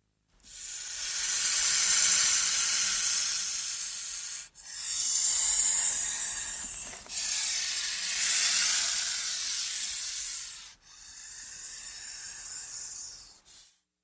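Snake hissing: four long hisses of two to four seconds each with short breaks between, the last one quieter, then a brief short hiss near the end.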